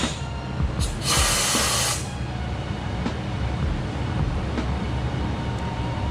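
A sharp click, then a loud burst of compressed-air hiss lasting about a second, over a steady low hum of shop machinery, with a few light clicks of tools on suspension parts.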